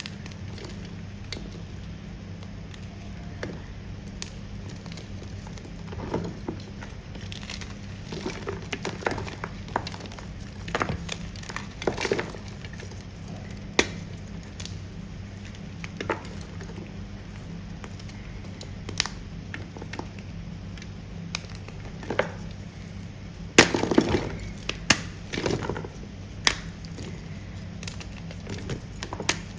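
Firm pasted gym chalk being bitten and chewed close to the microphone: scattered sharp crunches and cracks, with the loudest run of them about 24 seconds in, over a steady low hum.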